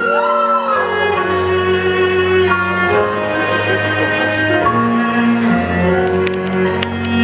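Music of bowed strings holding long sustained notes that change every second or two, with a few sliding notes in the first second.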